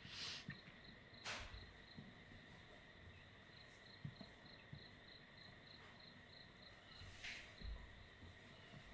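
Near silence holding a faint, steady high insect-like chirring that pulses about four times a second, with three brief soft rustles, two in the first second and a half and one about seven seconds in.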